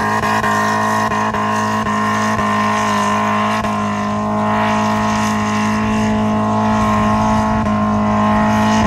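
Moca 1.8 dune buggy's engine running flat out at a steady high pitch as it climbs a steep sand dune.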